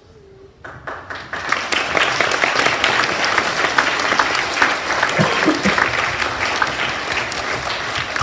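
Audience of schoolchildren applauding; the clapping starts about a second in, swells quickly and carries on steadily.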